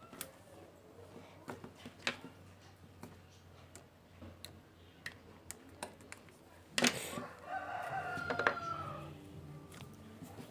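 Scattered small clicks and taps, then a sudden loud noise about seven seconds in, followed by a drawn-out pitched call, like that of a rooster or other animal, lasting about a second and a half.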